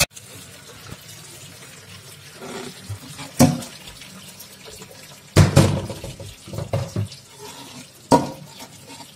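Aluminium pots clank sharply against each other and the steel sink several times as steaming cooked rice-and-noodle pilaf is tipped from one pot into another. A faint trickle of draining liquid runs underneath.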